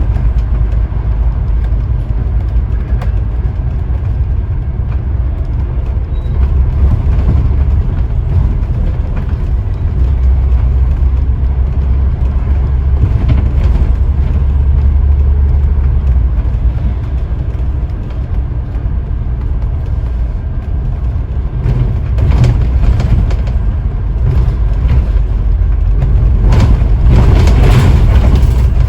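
Scania N94UD OmniDekka double-decker bus driving along, heard from on board: a continuous low engine drone with road and body noise, rising in strength for a few seconds a third of the way in.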